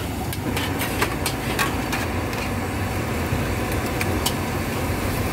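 Metal spatula scraping and clinking against a steel wok as greens are stir-fried and sizzle, with a few sharp clinks, most in the first two seconds and one about four seconds in. Under it runs a steady low rumble.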